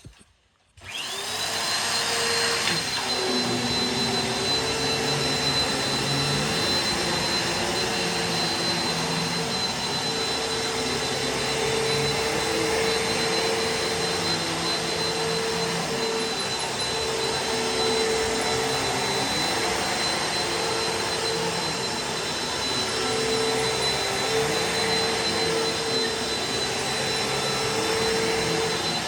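Bissell PowerForce Helix Turbo Rewind upright vacuum switched on about a second in. Its motor spins up with a rising whine, then runs steadily with a high whine over a full motor drone.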